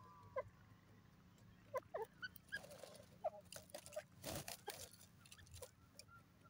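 Grey francolin giving short, quiet call notes, scattered irregularly, with a brief rustling burst a little over four seconds in.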